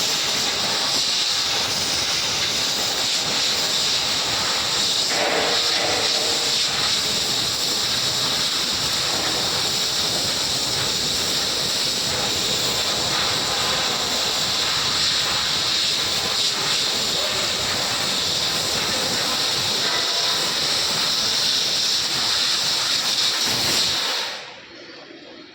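Steady, loud hiss of the assist-gas jet at the nozzle of an RK 3015 fiber laser cutter while it cuts stainless steel sheet, stopping suddenly about a second before the end.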